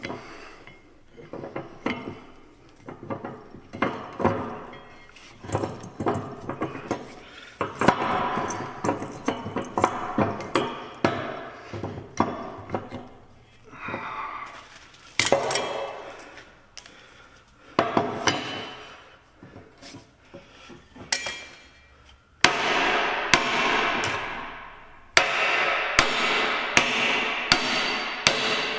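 Steel parts of a truck's front axle shaft knocking and clanking irregularly as they are worked in a bench vise. About three-quarters of the way in, a hammer starts striking the axle shaft's yoke about twice a second, each blow ringing, to drive out the worn-out U-joint.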